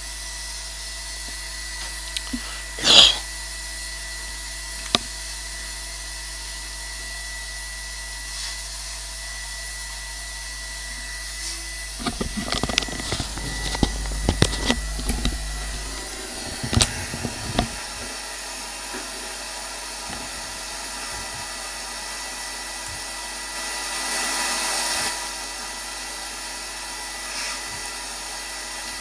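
Small bench vacuum running steadily while its hose sucks loose bits of waste plastic out of a 3D printer's build chamber. A sharp squeal comes about three seconds in. A spell of clattering and knocks follows about halfway through, and there is a short louder hiss near the end.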